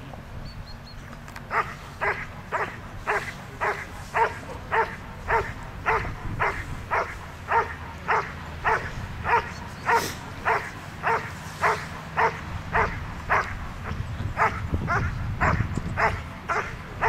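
German Shepherd barking steadily at a handler's side, about two sharp barks a second in an even run.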